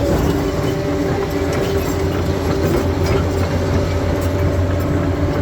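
Crawler bulldozer's diesel engine running steadily under load, with the clatter of its steel tracks and scattered clicks and knocks of stones.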